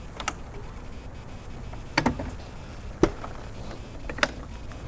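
Four sharp clicks from the Yamaha Grande scooter's smart-key ignition knob being pushed and turned, the loudest about three seconds in.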